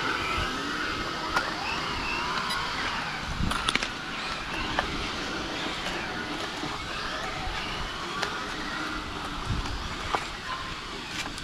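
Radio-controlled model cars running, their motors whining up and down in pitch, with a few sharp clicks.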